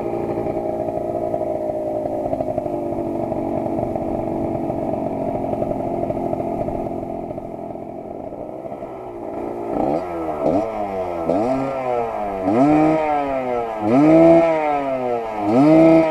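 Suzuki TS125 two-stroke single-cylinder engine running steadily, then, about two-thirds in, blipped on the throttle over and over, the revs rising and falling about once a second.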